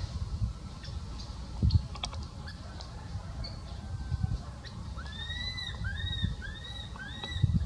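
Baby macaque giving a run of about five short, arching high-pitched calls in the last few seconds, each rising and falling, over low thumps.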